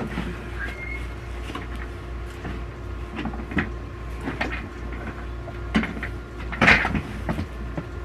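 Gaming chair parts being handled during assembly: scattered clicks and knocks, the loudest about two-thirds of the way through.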